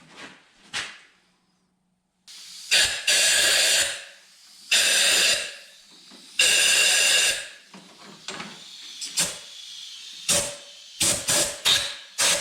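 Pressurised spray hissing in bursts: three long bursts of about a second each, then a run of short, quick bursts near the end.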